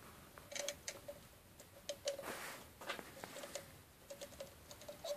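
Faint small clicks and rustles of copper wire strands being twisted together by hand, irregularly spaced.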